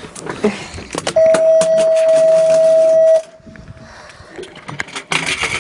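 A loud electronic beep, one steady tone held for about two seconds starting about a second in, then cut off, with scattered knocks and clatter around it.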